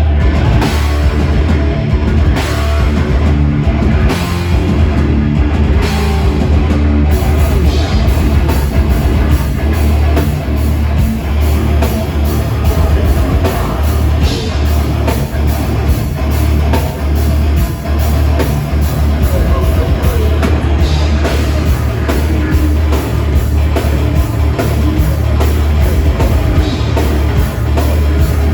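Heavy metal band playing live: guitars, bass and drum kit at full volume, loud and unbroken.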